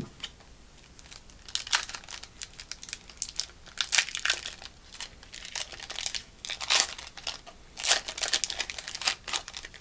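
Foil wrapper of a Pokémon trading card booster pack crinkling and tearing as it is opened by hand, in irregular bursts of rustling starting about a second and a half in.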